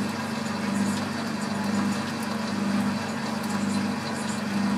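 Small Boxford lathe running steadily with a hum while screw-cutting a 12 mm metric thread, its leadscrew driven through a metric change-gear train.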